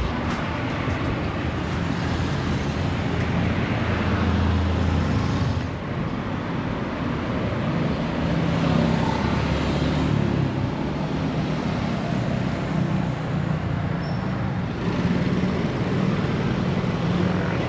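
Road traffic noise: vehicle engines running with steady road noise.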